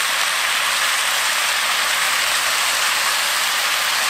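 Fish cake strips sizzling steadily in a hot frying pan with soy sauce just poured in, a constant even hiss.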